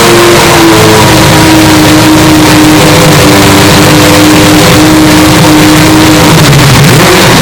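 Historic Group C race car engines running at high revs, the recording overdriven and clipped. The engine pitch drops about a second in, holds steady for several seconds, then wavers near the end.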